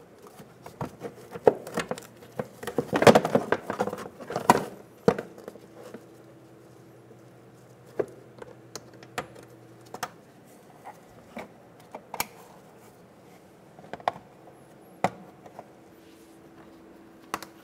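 Plastic wheel-well splash shield being pressed and worked into place by hand: scattered clicks and taps with rustling scrapes, busiest about three to five seconds in.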